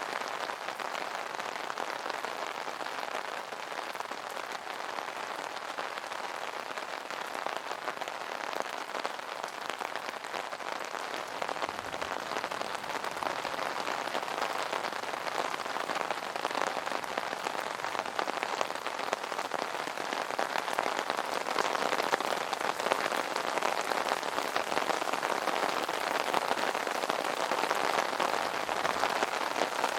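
Steady rain pattering on an umbrella canopy, a dense, even patter of many drops that grows a little louder in the second half.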